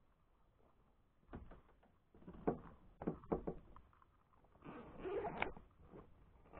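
Handling noises in a kayak: a string of light knocks and clicks starting about a second in, then a longer rustle near the end as a backpack on the deck is opened.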